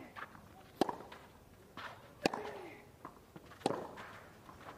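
Tennis rally on a clay court: three racket strikes on the ball, about one and a half seconds apart, some followed by a player's short grunt, with shoes scuffing on the clay between shots.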